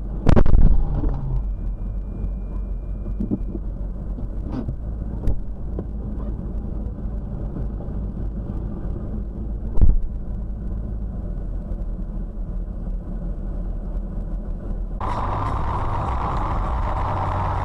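Dashcam recording of a car collision: a loud crash of impact just after the start, then a low steady vehicle rumble with two further sharp knocks, about five and ten seconds in. About fifteen seconds in, the sound switches abruptly to a brighter steady noise.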